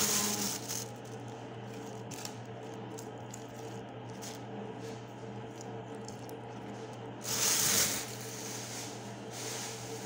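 Thin plastic bag rustling and crinkling as it is handled, with a louder rustle about seven seconds in. A steady low hum runs underneath.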